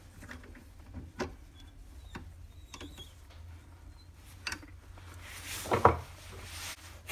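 Four-jaw lathe chuck being tightened by hand with a chuck key around a wooden bangle: a few separate metal clicks and small knocks, then a louder knock about six seconds in, over a faint steady hum.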